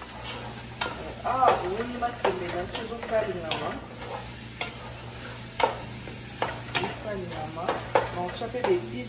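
Wooden spatula stirring sweet potato leaves (matembele) frying in palm oil in a pot. The leaves sizzle, and the spatula scrapes and knocks against the pot at irregular intervals.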